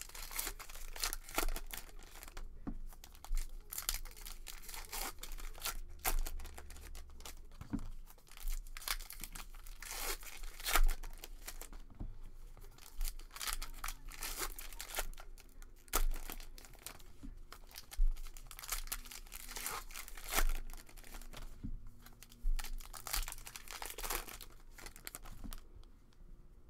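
Trading card pack wrappers being torn open and crinkled by hand, in many short bursts.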